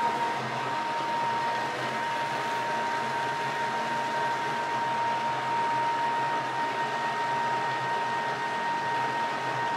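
Thermomix food processor blending cooked sweet potatoes into a purée at speed 6: a steady motor whir with a constant high whine.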